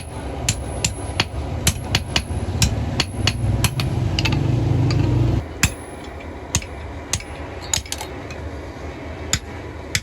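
Blacksmith's hand hammer striking metal on an anvil, a regular run of sharp ringing blows, two to three a second, that thin out in the second half. A low steady hum underneath stops about halfway through.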